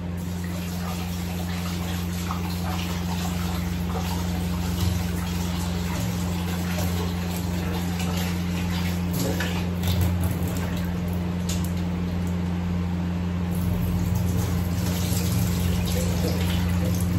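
Tap water running into a steel pot as raw chicken breast pieces are rinsed and rubbed by hand, with splashing and scattered sharp clicks. A steady low hum runs underneath.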